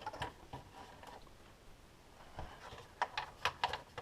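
Faint clicks and light taps of small bolts and a plastic engine cover being handled, with a quick run of sharper clicks about three seconds in.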